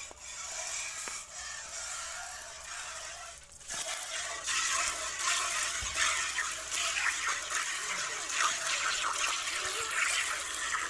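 A cow being milked by hand: milk squirting in quick streams from the teats into a steel pail, the squirting growing louder about four seconds in.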